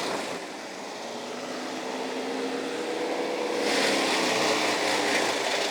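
An engine running steadily, its pitch creeping slowly upward, with a rushing hiss joining in about two thirds of the way through.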